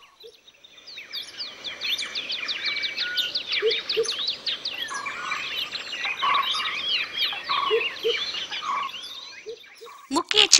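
Many birds chirping and calling together in a dawn chorus, a dense run of quick high chirps and sweeping calls with a few lower whistled notes. It starts about a second in and fades away shortly before the end.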